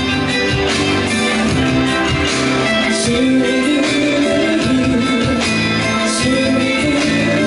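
A woman singing a Cantopop song live into a microphone over a pop backing track with a steady beat and guitar.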